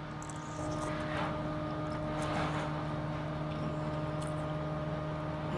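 A steady, even motor hum with a constant low pitch, engine-like, with faint chewing of noodles over it.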